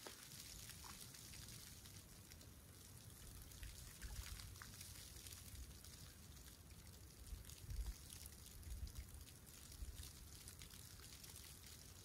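Faint lapping and trickling of calm sea water at the shoreline, with small drips and ticks. A few soft low rumbles come through, the strongest about eight seconds in.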